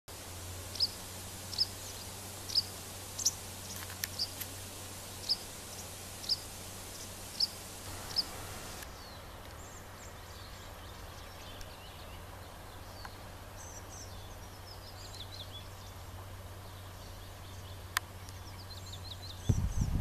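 A small songbird repeating a short, high call about once a second, around ten times. After a cut comes fainter birdsong with quick high trills over a steady low hum, and a low rumble of wind on the microphone sets in near the end.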